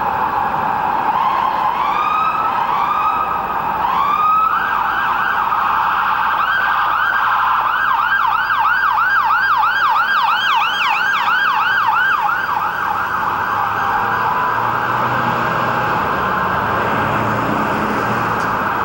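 Emergency vehicle sirens wailing in slow rising sweeps, then switching to a fast yelp of about four sweeps a second for several seconds midway, over a continuous din of overlapping siren sound.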